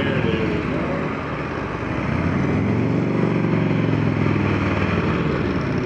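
Big touring motorcycles' engines running as the bikes ride through tight turns close by. One engine's note rises and falls again about midway through.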